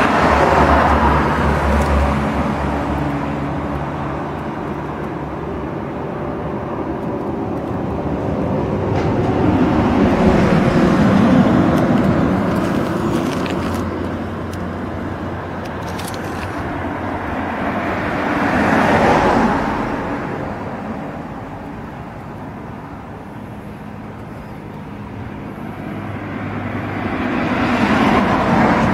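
Intercity bus under way: engine and road noise swelling and easing several times as the bus speeds up and slows.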